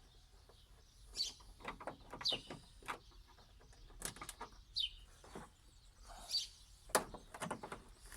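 Birds chirping, short falling chirps every second or two, mixed with scattered sharp clicks and light knocks from a screwdriver and screws being worked out of a TV's plastic back case.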